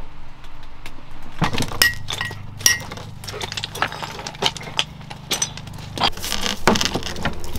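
Irregular sharp knocks and metallic clinks of hand tools against a block of black Marquina marble, a few with a short high ring, over a steady low hum.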